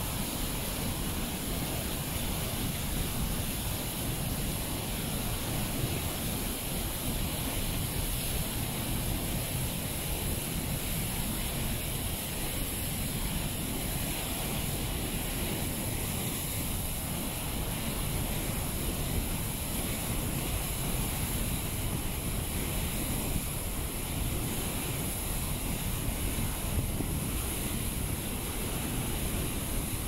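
Steady rushing roar of Basaseachi Falls and its whitewater tumbling over boulders, mixed with wind buffeting the phone's microphone.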